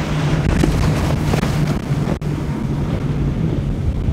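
Quad Yamaha outboard engines of a Hydra-Sports center-console boat running at speed, a steady drone under rushing water and wind on the microphone. The sound breaks off for an instant a little over two seconds in, then carries on.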